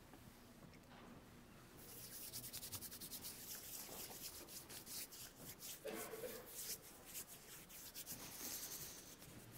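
Faint rustling and shuffling of people moving about, with many small soft clicks, starting about two seconds in.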